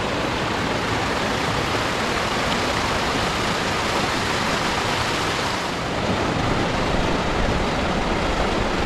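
Steady rushing water, an even roar of flowing water with no breaks.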